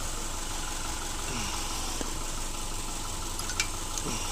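Car engine idling steadily while its alternator charges an ultracapacitor power bank through jumper cables, the bank now topped up to about 14.2 volts. A couple of faint clicks near the end.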